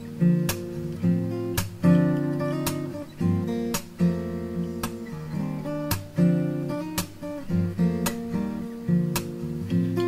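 Background music led by strummed acoustic guitar, with a light percussive click about once a second.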